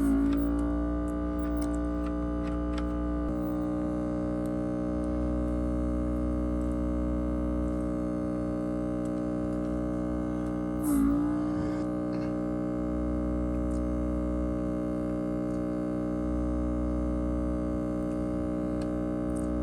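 Background music of sustained, distorted guitar-like chords over a low hum. The chord slides to a new pitch at the start and again about eleven seconds in.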